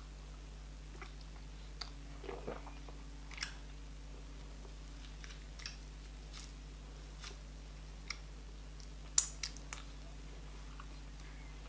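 Close-miked eating sounds: chewing on meat and fufu, with scattered short wet smacks and clicks, the loudest sharp one about nine seconds in.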